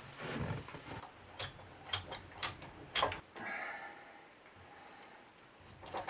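Four sharp clicks or light knocks, evenly spaced about half a second apart, followed by a faint brief rustle.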